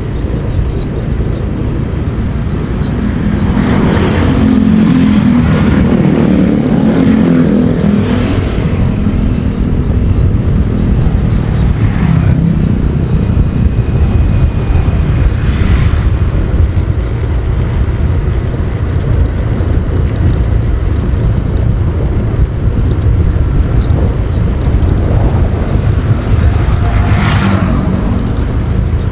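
A motorbike riding at speed: steady wind and road rush on the microphone with the engine running underneath, getting louder about three or four seconds in.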